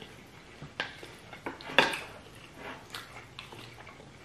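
Small wooden spoons scraping and knocking against plates of rice and stew: a run of sharp clicks, the loudest about two seconds in.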